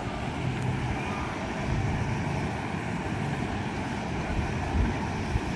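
Steady outdoor background noise: a constant rush with a faint steady hum under it and no distinct events.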